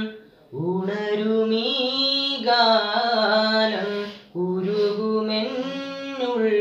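A teenage boy singing a song unaccompanied, in long held phrases with short breaks about half a second in and about four seconds in.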